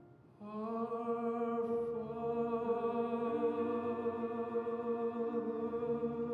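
Music: a singing voice enters about half a second in and holds one long note with vibrato over sustained accompaniment.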